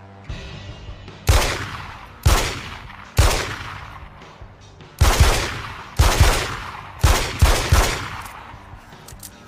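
Beretta 92FS Inox 9 mm pistol firing about ten shots, each sharp report trailing off in a long echoing tail. The first three come about a second apart, then the rest in quicker pairs and a triple.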